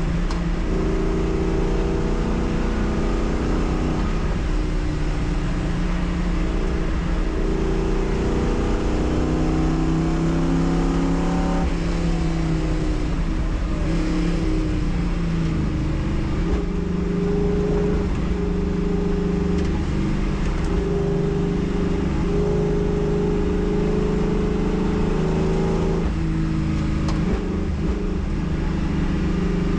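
Race car engine heard from inside the cockpit under racing load, its pitch climbing and dropping as the car accelerates, shifts gear and slows for corners.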